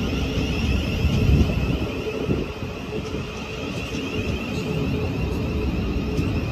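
Thameslink Class 700 electric multiple unit moving slowly along the platform: a steady high electric whine over a low rumble of the train.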